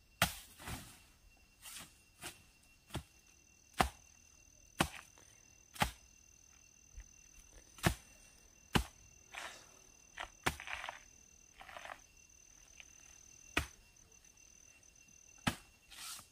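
Machete chopping into the soft, fibrous trunk of a banana plant: a dozen or so sharp strikes at uneven spacing, about one a second. Insects shrill steadily in the background.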